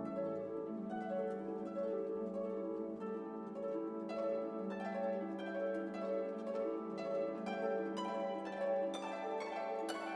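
Background music: plucked strings, harp-like, over held lower notes, with the plucked notes coming faster near the end.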